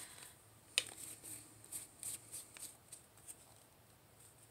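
A sharp click about a second in, then faint scattered clicks and rustles: a small plastic acrylic paint bottle being picked up and handled on a work table.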